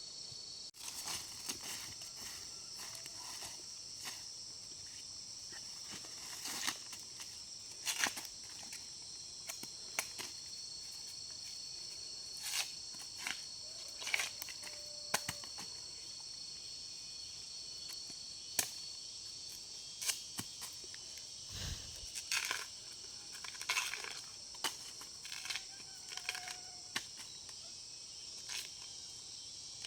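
Steady, high-pitched insect chorus, with scattered short cracks and rustles throughout.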